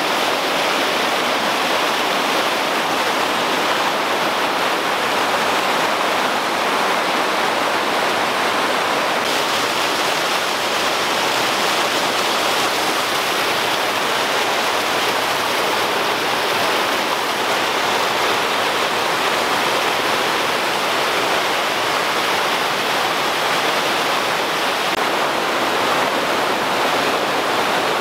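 Small waterfall cascading over rocks: a steady, loud rush of falling and churning water.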